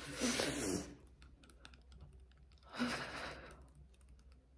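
A woman's breathy, half-voiced sounds twice, once at the start and again about three seconds in, with faint light clicking between them.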